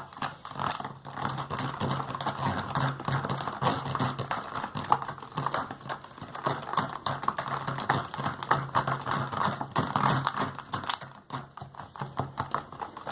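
Spoon stirring slime mixture in a bowl, a rapid run of clicks and taps against the sides.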